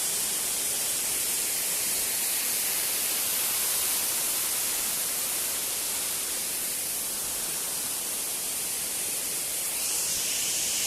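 Waterfall's falling water making a steady, even rush, strongest in the treble, growing a little brighter near the end.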